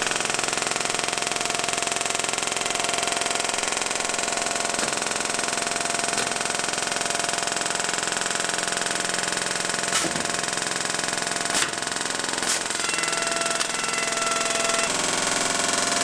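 Edgebanding machine running steadily without its dust extractor while a melamine-faced panel is fed through, gluing on an ABS edge, trimming it flush and cutting the ends. A few sharp clicks come roughly two-thirds of the way through.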